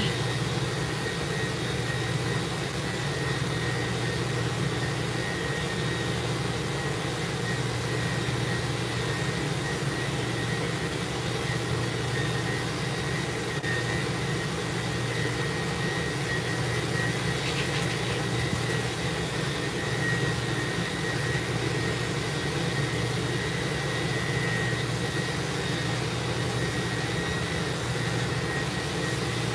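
Steady machine drone inside a mobile grooming van, a low hum with a thin, constant high whine over it, unchanging throughout.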